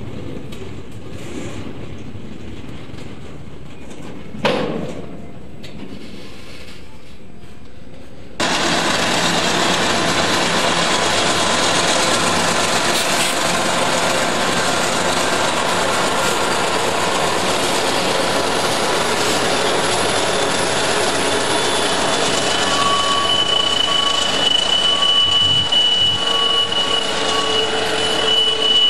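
Freight train rolling past, a steady rush of wheels and rail noise with a single thump about four seconds in. About eight seconds in, the sound jumps suddenly much louder. From about two-thirds of the way through, a high, steady wheel squeal rides over it.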